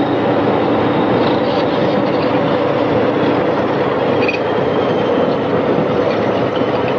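Heavy machinery running steadily and loudly, with a few brief high metallic squeals over the noise.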